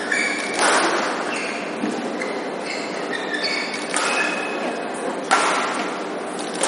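Badminton rally: sharp racket hits on the shuttlecock, the loudest about half a second in and two more about four and five seconds in, with short high squeaks of court shoes on the floor and a crowd chattering in the hall.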